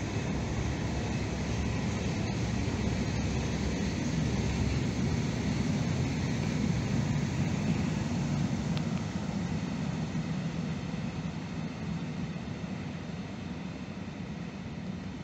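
Freight train of cement silo hopper wagons rolling past: a steady rumble of wheels on rails, fading over the last few seconds.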